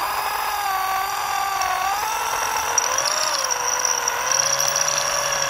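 Makita M0801B 500-watt electric drill in drill mode running an HSS bit through a thin sheet-metal cap. The motor whine sags and recovers in pitch as the bit bites, and a thin high whistle joins about halfway through.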